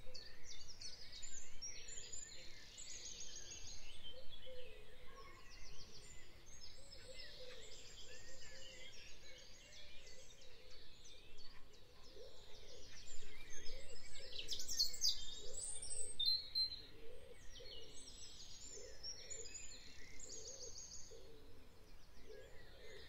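Birds chirping in the background, a dense run of many short high calls throughout, with a lower call repeating slightly faster than once a second over the second half.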